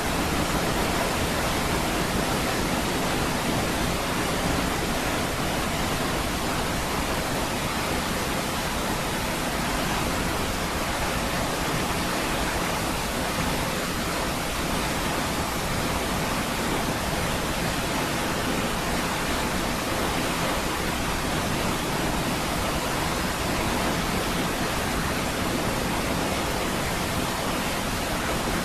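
Steady, unbroken roar of a large waterfall, Niagara Falls: a dense wash of falling water spread evenly from deep rumble to high hiss.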